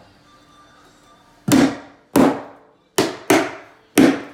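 Claw hammer driving the nails of a carpet tack strip into a wooden subfloor. There are five sharp blows, starting about a second and a half in and coming in quick succession, each with a short ringing fade.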